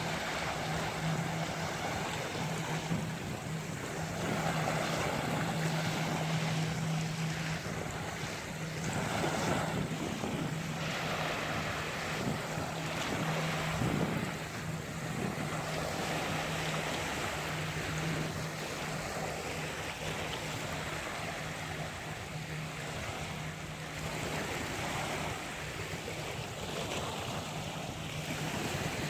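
Sea waves breaking and washing on a beach, the surf swelling and easing every few seconds, with a steady low hum underneath.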